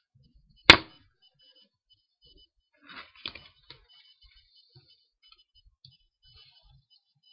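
Playing cards handled over a table. One sharp snap comes about a second in and is the loudest sound. A short run of softer clicks and card noises follows about three seconds in, then faint light taps.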